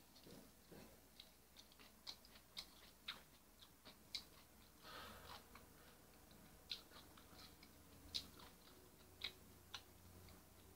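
Faint chewing of a mouthful of kimchi: scattered soft crunches and wet mouth clicks, with a brief soft breathy sound about five seconds in.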